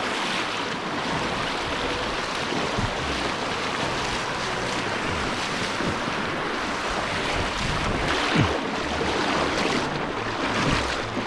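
Steady rushing of creek water, an even noise without rhythm or pitch.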